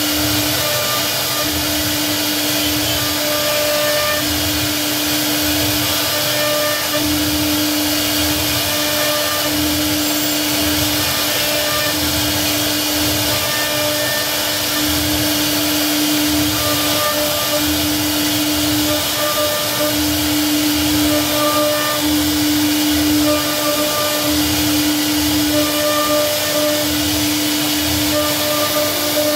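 CNC router spindle running as its bit carves a relief pattern into a wooden panel: a steady whine over an even rush of cutting noise, swelling and easing every second or so.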